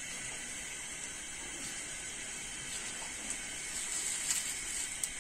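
Water-yam akara fritters frying in hot oil in a pan, a steady sizzle. A few light clicks of a metal spoon against the pan come in the second half as the fritters are turned.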